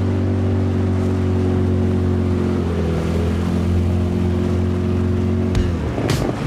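Boat's outboard motor running steadily under way, its note changing slightly partway through. Near the end the steady note breaks up and a few sharp clicks come in.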